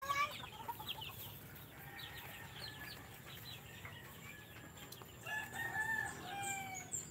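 Native chickens clucking and calling, with a rooster crowing once about five seconds in, a drawn-out call of a second and a half.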